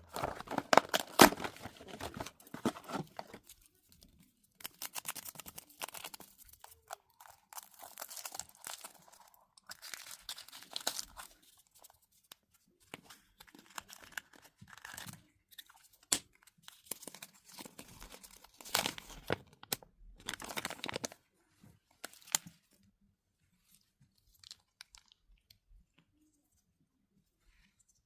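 Kinder Surprise egg being unwrapped and opened by hand: the foil wrapper tearing and crinkling, with crunching, in irregular bursts that stop after about three quarters of the time, leaving only a few faint ticks.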